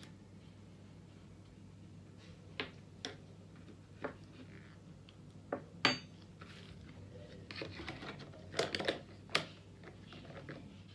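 Light clicks and knocks of a plastic measuring spoon, plastic tubs and a plastic measuring jug being handled, with a metal teaspoon set down with a short ringing clink about six seconds in and a cluster of knocks soon after, over a low steady hum.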